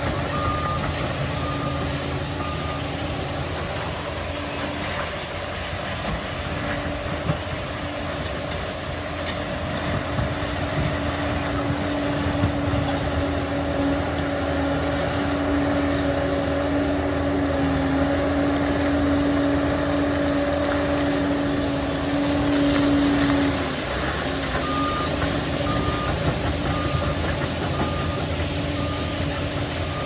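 Liebherr PR 746 crawler dozer's diesel engine running steadily under load, with a steady whine through the middle that cuts off near the end. A backup alarm beeps in a regular series near the start and again in the last few seconds, the sign that the machine is reversing.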